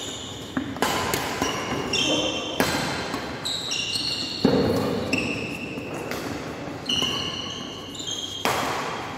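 Badminton doubles rally: sharp racket strikes on the shuttlecock, one every second or two, each echoing in the hall. Between the strikes, players' shoes squeak in short high squeals on the wooden court floor.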